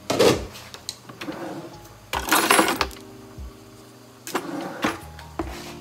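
A glass pot lid clatters down on a glass-top electric stove, then blended peanut mixture is poured from a blender jar into a pot of boiling water, with a splashing pour about two seconds in and a few knocks of the jar and pot after it.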